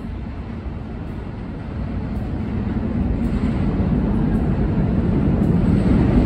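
New York City subway train of R32 cars hauling restored R10 and R16 cars, heard as it approaches through the tunnel. Its low rumble builds steadily louder from about two seconds in.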